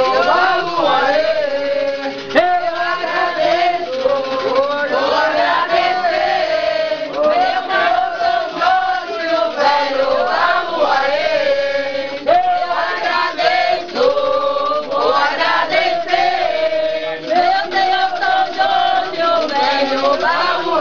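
A group of men and women singing an Umbanda ponto together, chanting with long held notes in unison, with one sharp knock about two seconds in.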